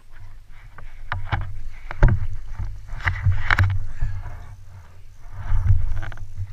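Boat being rowed: sharp wooden knocks of oars working in their oarlocks, the loudest about two seconds in, and splashes of water from the strokes, over a low rumble.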